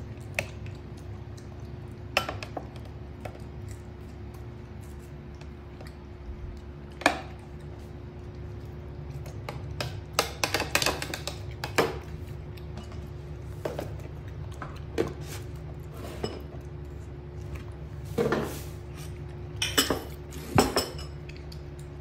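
Scattered clinks and taps of a metal spoon and tableware (a ceramic bowl and plate on a table), irregular and spread out, over a steady low hum.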